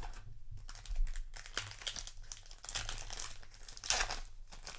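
Foil wrapper of a Flesh and Blood booster pack crinkling in the hands and being torn open, with the loudest rip about four seconds in.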